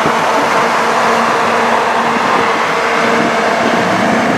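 Steady vehicle road noise while driving alongside a lifted pickup truck: tyre rush and wind with a low, even engine hum.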